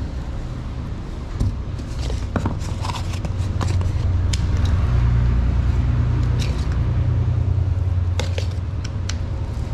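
A metal spoon scrapes and clicks against a stainless steel bowl while scooping ground raw chicken, in scattered sharp taps. Under it runs a steady low rumble that swells in the middle, and this rumble is the loudest sound.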